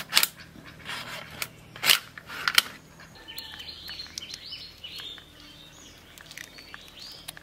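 A river crab's shell cracking sharply several times in the first three seconds as it is cut on a curved upright blade and broken apart by hand. After that, birds chirp in the background.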